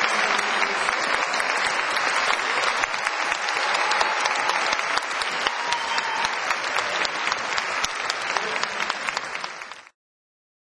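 Audience applauding steadily, a dense patter of many hands clapping, which cuts off suddenly near the end.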